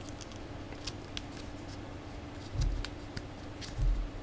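Faint clicks and taps of a small, somewhat hollow plastic action figure being handled and its joints worked, with two soft low bumps about two and a half and four seconds in.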